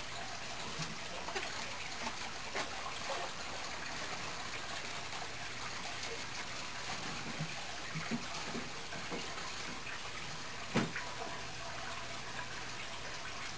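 Aquarium water circulating with a steady trickling hiss, broken by a few faint clicks and one sharper knock about eleven seconds in.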